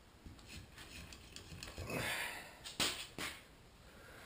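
Metal-on-metal handling noises from work on a motorcycle fork leg: light clicking, a short rush of noise about two seconds in, then two sharp knocks about half a second apart.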